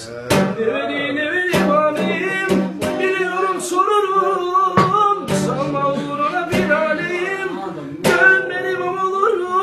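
A man singing a song to his own acoustic guitar, the melody held in long wavering notes over the guitar, with sharp strummed chords cutting in every second or so.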